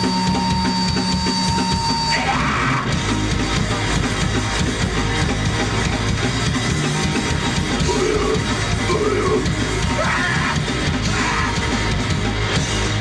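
Live heavy metal band playing loud with distorted guitar, bass and drums. A steady high tone, like guitar feedback, rings at first, and the full band comes in about two seconds in.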